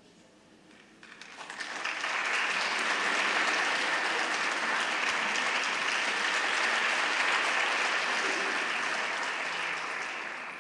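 Audience applauding: the clapping builds up about a second in, holds steady, and dies away near the end.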